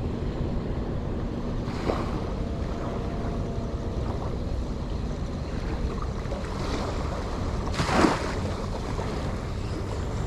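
Waves washing over shallow coastal water, with wind buffeting the microphone. A short, louder rush of water comes about eight seconds in.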